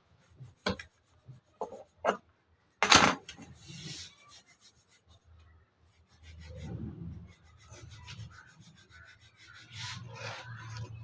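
Hand work on wood: a few sharp knocks, a louder scraping stroke about three seconds in, then quieter rubbing and scraping of a tool against the wood.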